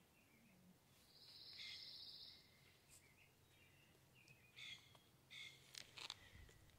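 Faint wild bird calls over quiet yard ambience: a fast high trill lasting about a second and a half, starting about a second in, then several short chirps near the end, with a soft low bump among them.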